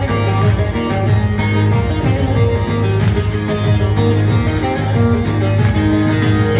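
Loud folk dance music for a line dance, a plucked string instrument carrying the melody over a steady low beat.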